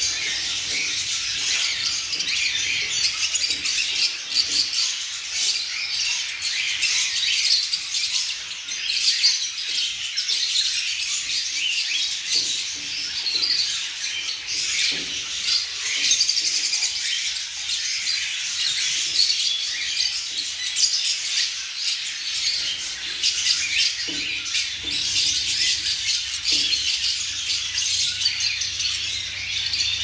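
Many caged small birds, budgerigars among them, chirping all together in a dense, unbroken chatter.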